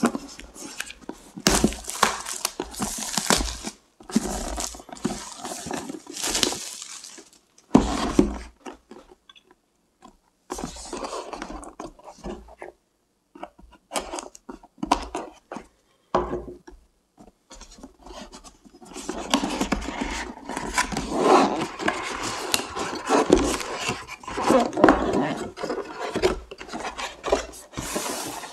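Hands handling a cardboard box: for the first several seconds, rustling and rubbing on the box. Around the middle, a utility knife blade scrapes through the paper seal stickers in short strokes and clicks. For the last third, cardboard slides and rubs steadily as the lid is worked off the box.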